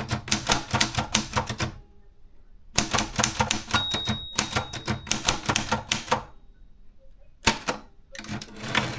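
Maritsa 30 portable manual typewriter being typed on, with rapid bursts of key strikes. The typing stops for about a second after the first two seconds, and a short steady ring sounds during the second burst. A few scattered strikes come near the end.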